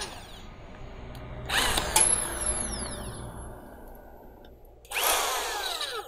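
Master 13 mm corded electric drill run with no load in two short trigger pulls. Each time the motor whines up to speed and then winds down with a falling pitch. A sharp click comes about two seconds in.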